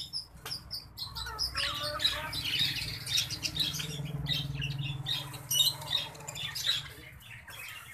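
Many small caged birds chirping and squawking, with short high chirps overlapping one another over a low steady hum.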